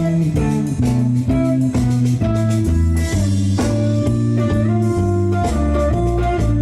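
Live band playing an instrumental blues groove: guitar notes over a moving bass line and drum kit.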